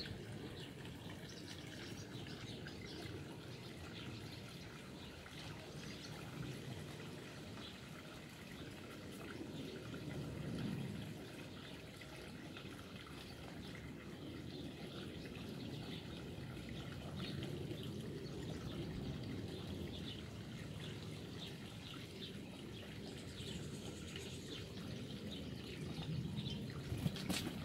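Dogs lapping water from a pond, a run of faint wet ticks, with faint birdsong behind.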